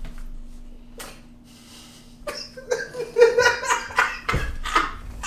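Quiet for about two seconds, then a person laughing in short, broken bursts.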